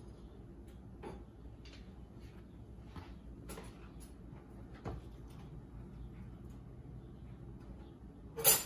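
Light kitchen handling noises: a few faint scattered taps and clicks over a low steady hum, then one sharp knock near the end.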